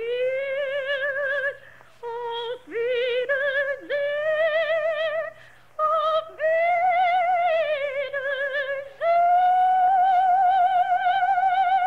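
Operatic soprano singing a slow song alone in the foreground, sustained notes with strong vibrato broken by short pauses, ending on a long note held for about three seconds. A faint steady low hum lies underneath.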